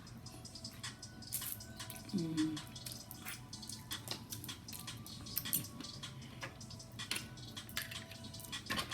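Close-up mouth sounds of eating smoked sausage: wet chewing, lip smacks and many small clicks, with a short "mm" hum about two seconds in.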